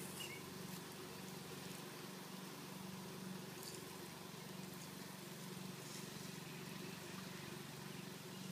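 Faint steady hiss and patter of a toy lawn sprinkler's water spray falling on grass, over a low steady hum.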